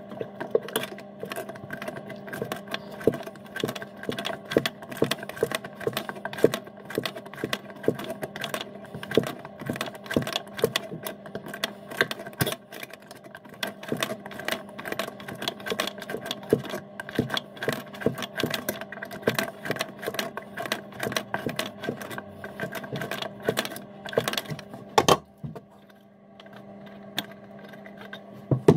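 Water pump pliers undoing a rusty fixing nut on a basin mixer tap's threaded stud: rapid, irregular metallic clicks and scrapes as the jaws grip, turn and regrip, with a louder knock about 25 seconds in, after which the clicking mostly stops. A steady low hum runs underneath.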